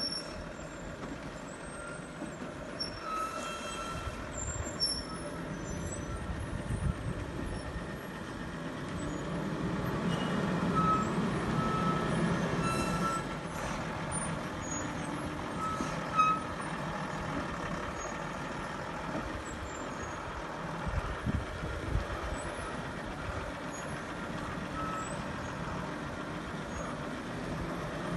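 Tata SE 1613 lorry loaded with timber, its diesel engine running as it crawls over a rutted dirt track, growing louder for a few seconds midway. Short high squeals or beeps come now and then.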